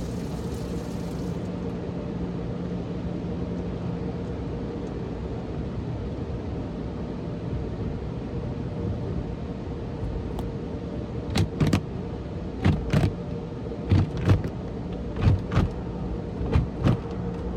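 Automatic car wash heard from inside the car: a steady rush of water spray over a machinery hum, then from about halfway through, irregular hard slaps as the cloth wash brushes strike the windshield and body.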